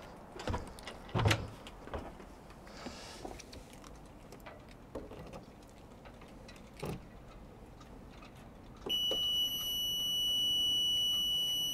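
A few knocks and clicks as the engine instrument panel's cover is opened and the ignition key is handled. About nine seconds in, the panel's alarm buzzer starts a steady high tone: the ignition is switched on with the engine not running, and the panel has power and works.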